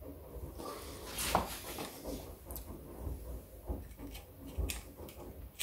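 Faint small clicks, taps and rustles of hands turning and pushing a Triumph Trident T160 tacho drive unit in the crankcase to locate its drive tang in the camshaft end, with a slightly sharper click about a second in.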